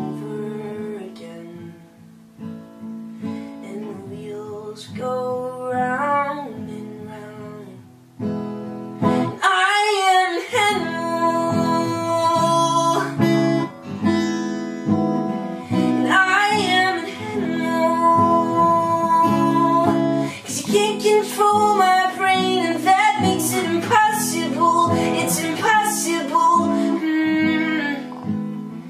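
Acoustic guitar song with a male voice singing. The playing is quieter and sparser at first and turns louder and fuller about nine seconds in.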